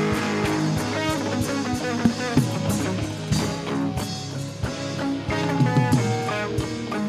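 Instrumental worship music from a live band: guitar notes over sustained chords, with light drums.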